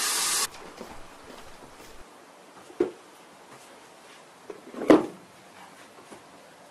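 Background music cuts off abruptly about half a second in, leaving quiet room tone. A soft knock comes about three seconds in, then a louder knock and rustle near five seconds as a white cardboard box is handed over and opened.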